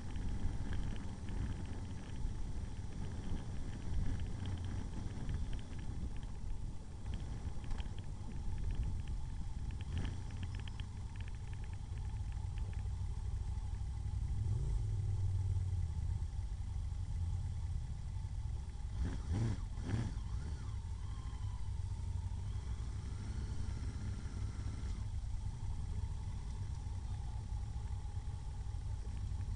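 Motorcycle running along at riding speed, heard from on the bike: a steady low engine and road rumble, with a short burst of knocks about two-thirds of the way through.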